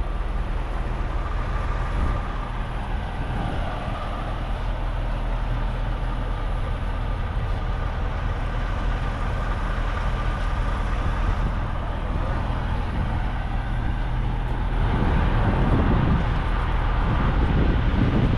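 Motor vehicle noise: a steady low engine and traffic rumble that gets louder about fifteen seconds in.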